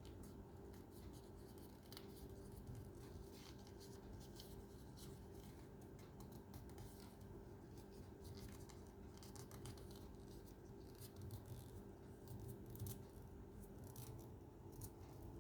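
Faint handling of paper: scattered crisp rustles and clicks as sheets are folded and creased or cut, over a steady low hum.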